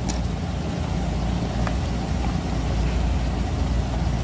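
A steady low hum of a running motor, with a light click right at the start.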